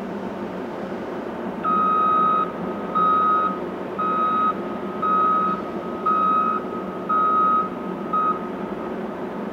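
Caterpillar 988K XE wheel loader's reversing alarm beeping seven times, about once a second, over a steady low machinery drone. The beeps start a little under two seconds in and stop about a second before the end.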